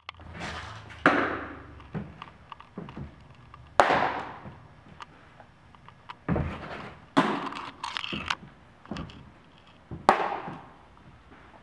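Baseballs smacking into leather gloves during a throwing session, several loud sharp pops a second or three apart, each echoing off the metal walls of the building.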